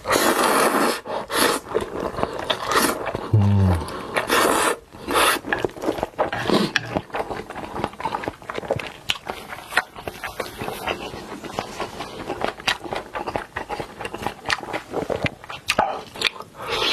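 Close-miked eating sounds: a person chewing and biting food, with dense irregular crunching, clicks and wet mouth noises. A brief low hum comes about three and a half seconds in.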